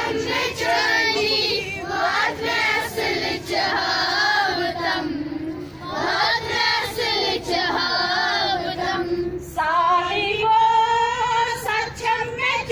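Schoolchildren singing a prayer together in chorus, with a woman's voice among them, phrase by phrase with short pauses between lines.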